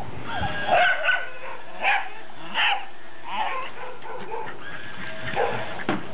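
Small dog yapping excitedly in a run of short, high barks, about seven of them, with a pause of nearly two seconds in the middle.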